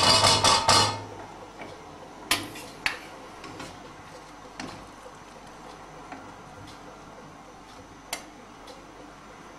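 Stainless steel pots and a handheld metal strainer clattering: a loud burst of ringing metal clanks in the first second, then a few single knocks and clinks.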